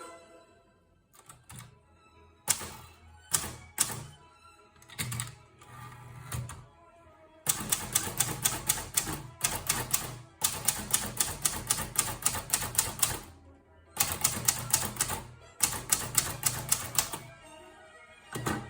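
Hermes Baby portable typewriter being typed on. A few scattered key strikes and clunks come first, then from about seven seconds in there are fast runs of keystrokes, several a second, broken by short pauses.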